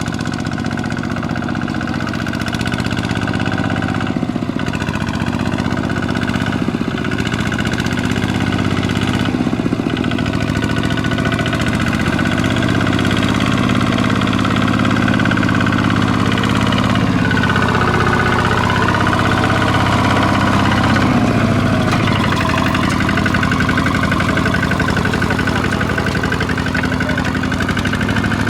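RZ 150 walking tractor's engine running steadily under load, its pitch shifting briefly a little past the middle.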